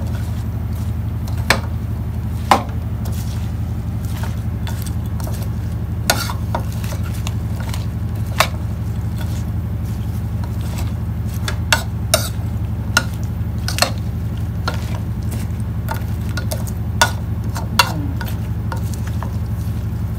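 Metal spoon tossing a salad in a bowl, with about ten irregular clinks of the spoon against the bowl, over a steady low hum.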